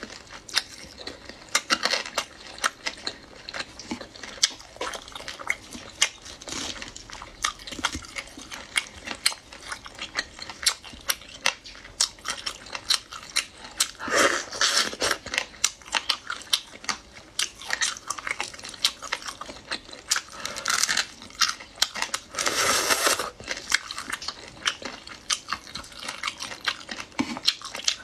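Close-miked eating of shellfish in sauce: wet mouth clicks, smacking, biting and chewing, with two longer, louder bursts about 14 and 23 seconds in.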